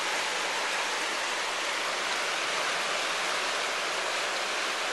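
Oak Creek running high over rocks in whitewater rapids, swollen after recent rain: a steady, even rush of water.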